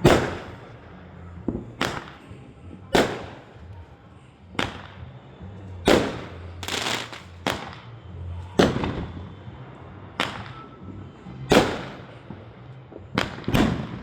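Fireworks going off: a run of about fifteen sharp bangs at irregular intervals, each trailing off briefly, with several in quick succession near the end.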